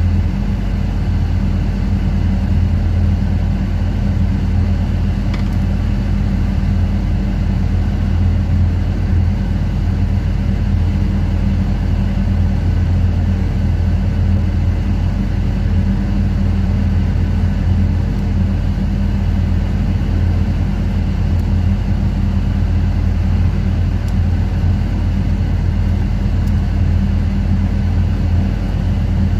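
Ship's machinery running with a loud, steady, deep drone.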